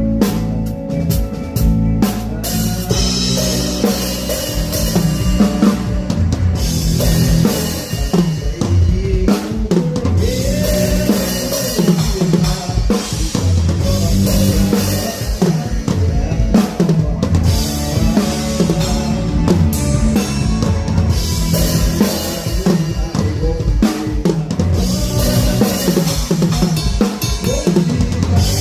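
Rock drum kit played live, with kick drum, snare and cymbals driving a steady beat, and bass and guitar playing along underneath.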